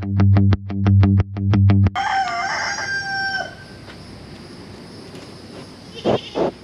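Distorted electric guitar music with a quick strummed rhythm, cutting off about two seconds in; a rooster then crows once, followed near the end by two short animal calls.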